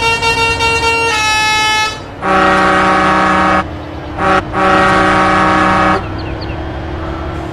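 Telolet-style multi-tone truck horns: first a musical horn stepping to a new note about a second in, then two long, loud blasts of a lower chord with a short toot between them. Vehicle engine noise follows once the horns stop.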